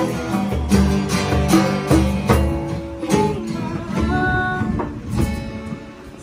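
Two acoustic guitars strummed together with a hand drum keeping the beat, the playing thinning out and getting quieter near the end.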